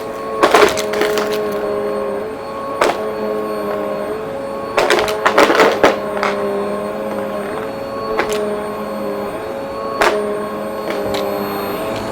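Upright vacuum cleaner running with a steady motor whine, with sharp crackling clicks every few seconds as debris is sucked up and rattles through it; a longer run of crunching comes around five seconds in.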